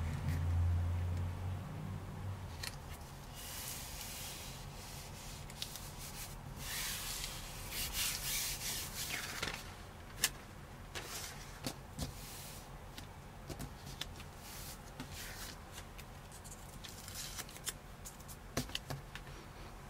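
Carbon-fibre-pattern vinyl film and plastic wrap rustling and rubbing as the sheet is handled and smoothed down on a tabletop. The rustle comes in several spells, with light clicks and taps between them.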